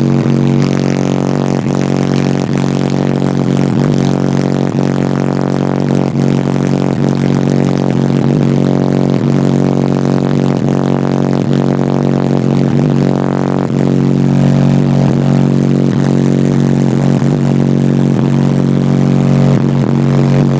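Car audio subwoofers playing one loud, steady bass tone for a bass competition run. The tone comes on abruptly and holds without a break, heard as a buzzing drone.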